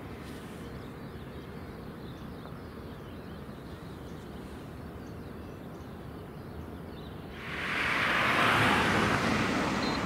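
Steady distant low rumble of an airport with faint chirping. About two-thirds of the way in, a loud rushing jet-engine roar from an airliner sets in suddenly and carries on to the end.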